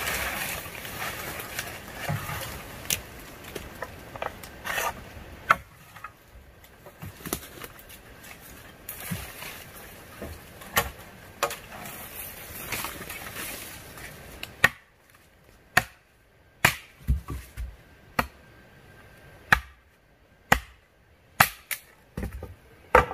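Irregular sharp clicks and snaps, well over a dozen, with no steady rhythm. A steady hiss lies under the first part and drops away about two thirds of the way in, leaving the clicks on a quiet background.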